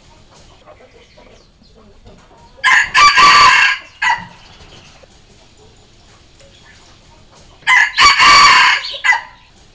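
Red junglefowl rooster crowing twice, about five seconds apart. Each crow is a short opening note, a longer middle part and a clipped final note.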